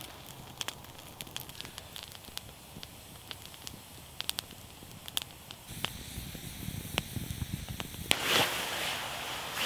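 Wood campfire crackling with scattered sharp pops. About eight seconds in, a louder rustling noise sets in over it.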